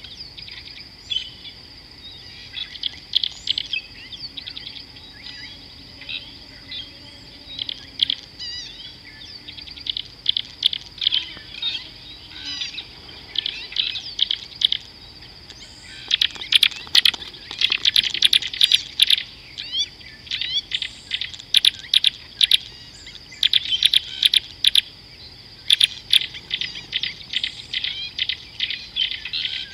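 Birds chirping and calling in quick bursts, busiest in the second half, over an insect's steady high-pitched drone.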